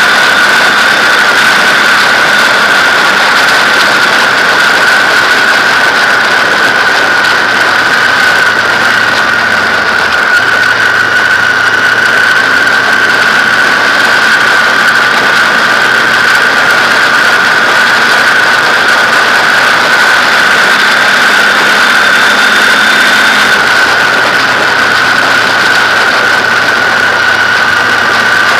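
BMW R1200GS flat-twin boxer engine running at steady cruising speed under loud wind rush, with a steady high whine. The engine note shifts slightly about ten seconds in and again near the end.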